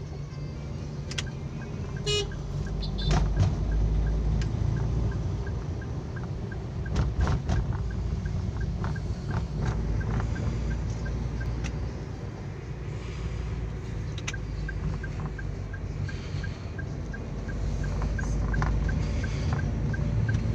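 Car ride heard from inside the cabin: steady engine and road rumble, with a regular light ticking about twice a second that stops for a couple of seconds in the middle and then resumes.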